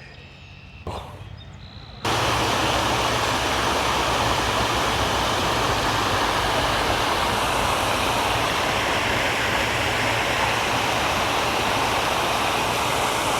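Rushing water, a steady, even rush that starts abruptly about two seconds in after a quiet moment.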